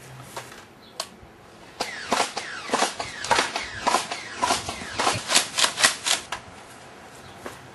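A rapid run of sharp plastic snaps and clacks from Nerf foam-dart blasters being fired and worked, about three a second for roughly four seconds, after a single click about a second in.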